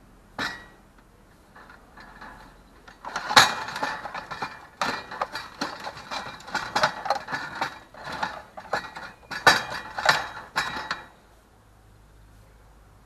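Irregular mechanical clicking, creaking and scraping of something being worked by hand, starting with a single click, then a dense run of clicks for about eight seconds before it stops.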